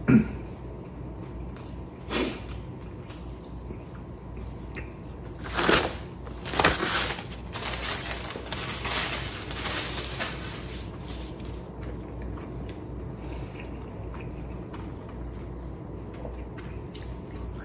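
A man blowing his nose into a paper tissue: a couple of hard blows about six and seven seconds in, then softer blowing and rustling for a few seconds. Before this come a couple of small knocks.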